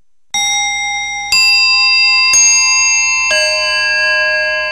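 Title music of bell-like chime notes: four notes struck about a second apart, each ringing on so that they stack into one sustained chord.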